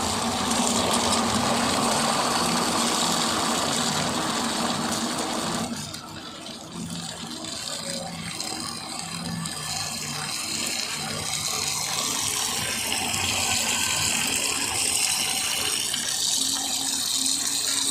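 Water running into the tub of a Panasonic NA-FS85A7 top-loading washing machine as it fills at the start of a wash cycle. The steady rush of water drops to a quieter flow about six seconds in.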